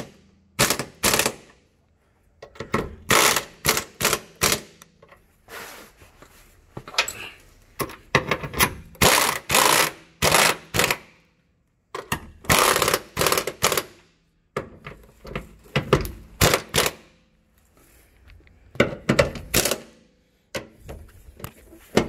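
Air impact wrench hammering 13 mm bolts tight in repeated short bursts, with brief pauses between bolts.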